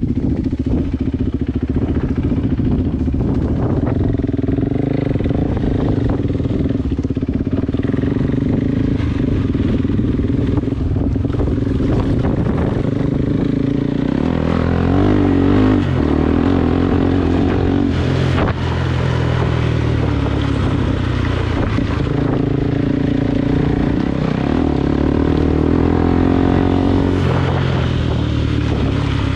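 Motorcycle engine running steadily while riding a rough dirt track. Its pitch shifts with the throttle and gear changes about halfway through and again near the end.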